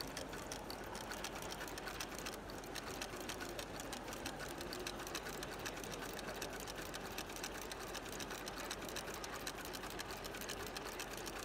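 FOXSEW FX-M350 moccasin ornamental stitching machine running steadily, a fast, even clatter of needle strokes as it stitches a shoe upper to a jute espadrille sole.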